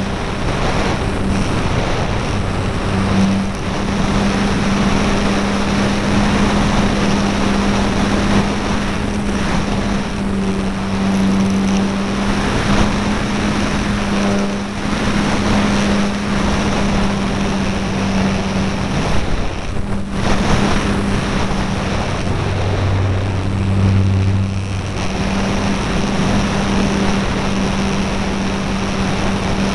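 E-Flite Apprentice's electric motor and propeller running at a steady pitch in flight, with heavy wind noise over the onboard keychain camera's microphone. The motor note dips briefly about twenty seconds in.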